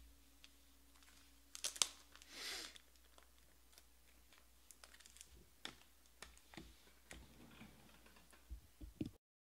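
Light clicks and taps of a trading card and its clear plastic holder being handled on a table, with a sharp pair of clicks about two seconds in followed by a brief rustle of sleeve or plastic. Scattered faint ticks follow, and the sound cuts off abruptly just before the end.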